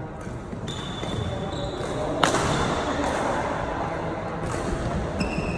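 Badminton racket striking the shuttlecock with one sharp crack about two seconds in, amid short high squeaks of sports shoes on the wooden court floor.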